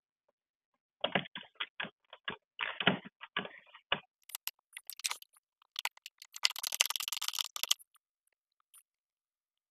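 Clicking and scraping of a T20 Torx driver working the screws that hold a car's side mirror to the door. Irregular clicks at first, then a dense run of rapid clicks past the middle that stops short of the end.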